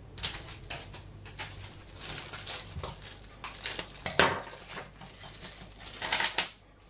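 A plastic bag being opened and handled, with small metal scope rings clinking and rattling together, in irregular bursts that are loudest near the end.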